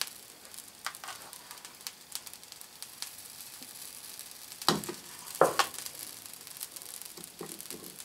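Kasenit case-hardening powder sizzling and crackling as it is sprinkled from a can onto a red-hot steel vise jaw in a metal tray. A few louder sharp knocks come about five seconds in.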